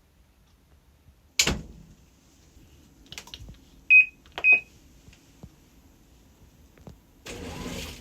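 A sharp click, then two short high electronic beeps about half a second apart from a household appliance's control panel. A steady hiss starts near the end.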